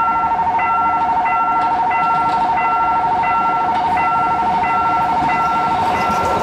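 Electronic railway level-crossing warning bell ringing, an even ding about every two-thirds of a second, over a continuous rapidly warbling alarm tone that cuts off at the very end.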